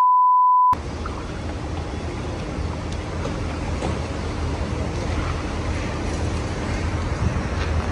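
A steady 1 kHz censor bleep, covering a phone number being read out, cuts off suddenly under a second in. Then a steady low rumble with a hiss above it: wind and street noise.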